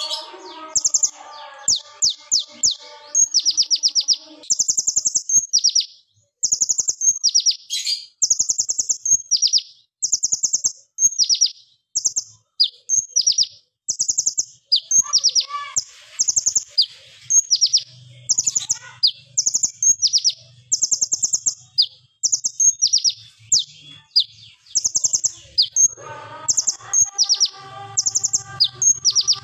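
Male purple-throated (van Hasselt's) sunbird, the kolibri ninja, singing. It gives high, rapid rattling trills in short bursts about a second apart: the sharp 'AK47 shots' that keepers want in a lure song.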